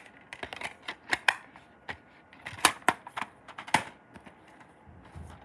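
Irregular sharp clicks and snaps of a DVD box set's packaging being handled and taken off.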